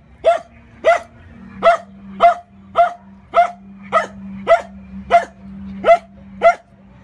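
Four-month-old puppy barking repeatedly: about eleven short, high-pitched barks in a steady rhythm, a little under two a second.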